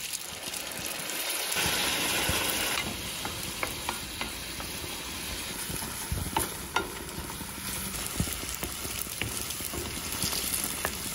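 Spaghetti sizzling and bubbling in a hot aluminium pan of butter and oil over a high gas flame as ladled pasta water hits it, while a wooden spoon stirs and taps against the pan. The sizzle is strongest in the first three seconds.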